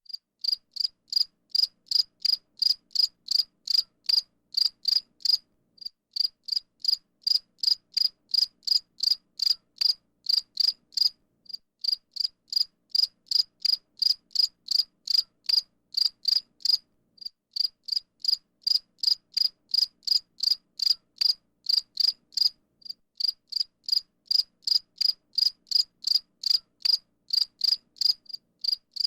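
A cricket chirping steadily, short high chirps at about three a second, in runs of several seconds with brief pauses between them.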